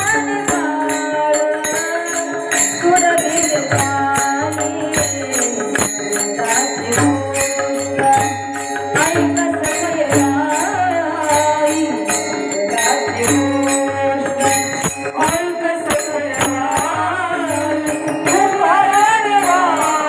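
A woman singing a Marathi devotional kirtan song with instrumental accompaniment and a steady beat of small hand cymbals. The voice glides through a long ornamented phrase near the end.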